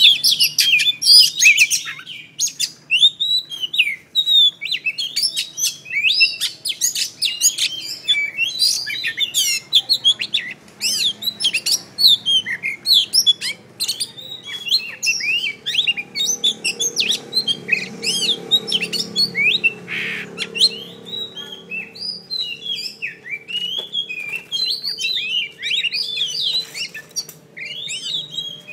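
Caged oriental magpie-robin, a mature bird in its third season, singing without pause: a fast, varied run of whistles, trills and chattering notes.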